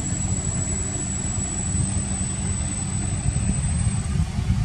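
Steady low rumble with a faint engine-like hum, and a thin high-pitched whine that stops near the end.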